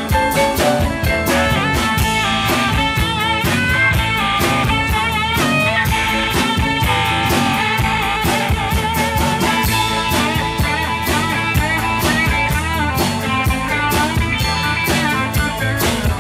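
Live band playing an instrumental passage with a steady drum-kit beat: pedal steel guitar, electric guitar, electric bass and keyboard, with a wavering lead melody and no singing.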